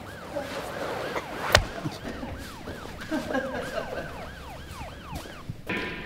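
Emergency-vehicle siren in a fast yelp, quick rising-and-falling sweeps several times a second, which stops shortly before the end. A single sharp bang cuts through it about a second and a half in.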